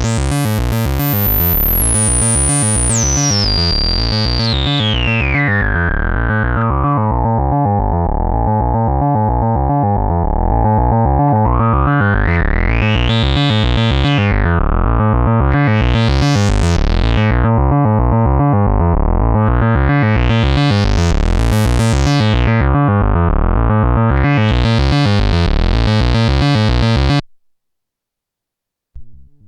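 Modular synthesizer: a Morphing Terrarium E350 oscillator playing fast repeating notes through a resonant Eurorack filter. The filter's cutoff falls in steps from very bright to dull over the first eight seconds, then opens and closes in slow sweeps under LFO modulation. The sound cuts off suddenly near the end.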